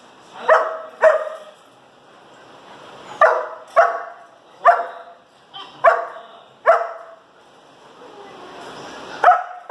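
Puppy barking in short single barks, about nine of them, often in quick pairs, with a pause of a couple of seconds after the first pair and a longer pause before a last bark near the end.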